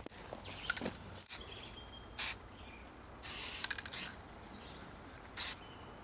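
Aerosol spray paint can hissing in short bursts: a brief one about two seconds in, a longer spray around three and a half seconds, and another brief one near the end, over faint outdoor bird and insect chirping.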